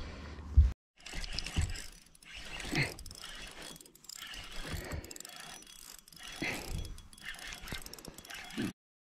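A thump about half a second in, then a spinning fishing reel being handled and cranked, its gears clicking and whirring in uneven spurts.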